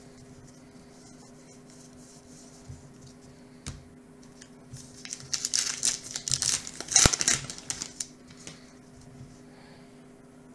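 A baseball card pack's wrapper being torn open and crinkled, loudest about halfway through with a sharp snap near the peak. Before it, the soft handling sounds of cards being sorted.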